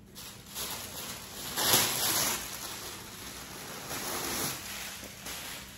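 Thin wrapping paper crinkling and rustling as it is handled and pulled out of a cardboard box, loudest about two seconds in. It is noisy enough to need an apology.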